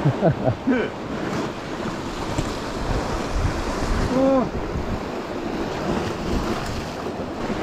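Sea surf washing against the shore rocks, with wind blowing on the microphone.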